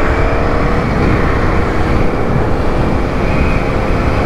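Motorcycle V-twin engine pulling in gear, its pitch rising over about the first second and then holding steady at cruising speed. Heavy wind rumble on the microphone runs underneath.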